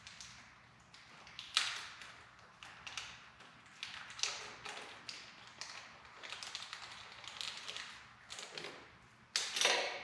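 Scattered light taps and clicks of small screws, a washer and hand tools being handled while a wire is fastened to a tractor's ignition switch, with a sharper clatter near the end.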